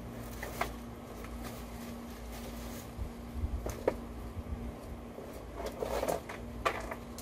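Items being rummaged through and handled in an SUV's cargo area: scattered light knocks and clicks of objects set down and moved, with a rustle of packaging about six seconds in, over a steady faint hum.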